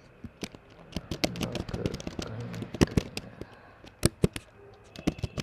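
Typing on a computer keyboard: a quick, irregular run of key clicks, with the sharpest strokes a little under three seconds in and about four seconds in.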